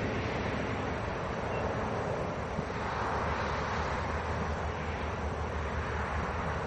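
A train running by the platform: a steady rumble with a low engine drone underneath.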